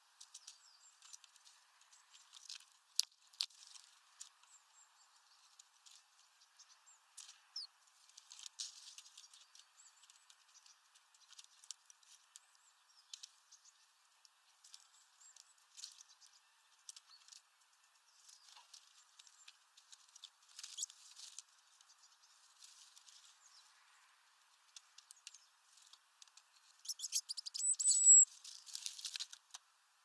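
Great tits at a mesh seed bag: scattered light taps and pecks of beaks and feet on the bag and perches, with a few thin high calls. A quick flurry of taps and a short high call come near the end.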